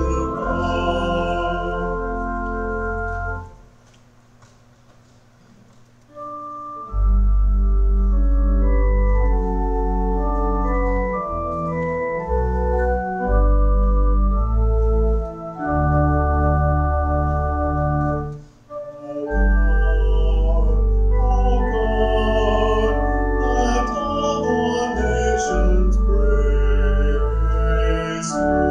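Church organ playing sustained chords over deep bass notes. A held chord ends about three and a half seconds in, and after a short pause a slow passage of changing chords begins.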